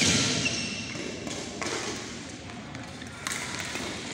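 A few sharp taps of badminton rackets striking shuttlecocks, echoing in a large sports hall.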